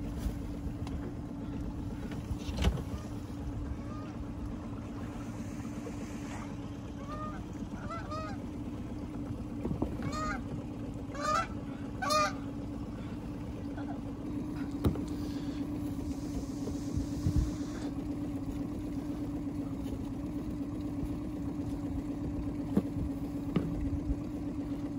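A boat's outboard motor idling with a steady low hum. Over it, birds give a run of honking calls around the middle, and a few single knocks sound now and then.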